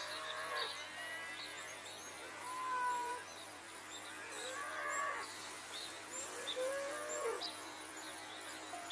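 Outdoor animal sounds: many short bird chirps over a steady high insect drone, with a few short pitched calls around three, five and seven seconds in.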